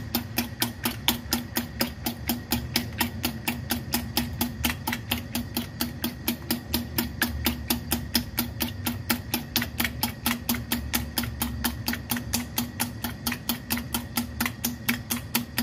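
A fork beating eggs in a ceramic bowl, its tines clicking against the bowl in an even, quick rhythm of about five strokes a second.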